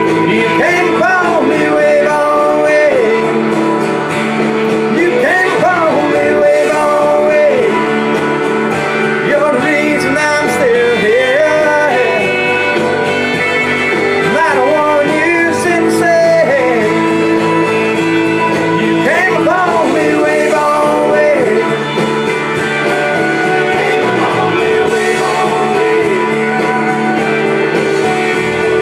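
A man sings a country song to his own strummed acoustic guitar. The voice stops about three-quarters of the way through, and the guitar carries on alone.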